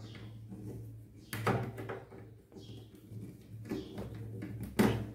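Hands working a plastic RO float switch and its screws into the purifier's frame: rubbing and scraping with two sharp knocks, one about a second and a half in and one near the end, over a low steady hum.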